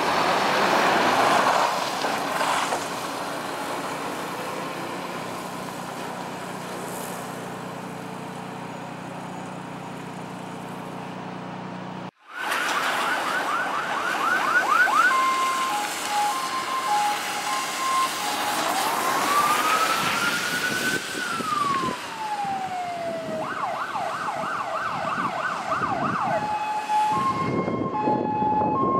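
A fire engine's diesel engine running as it pulls away. After a cut, an approaching fire engine's electronic siren cycles through its patterns: a fast yelp, a two-tone hi-lo, one slow wail that rises and falls, the yelp again, and the hi-lo near the end.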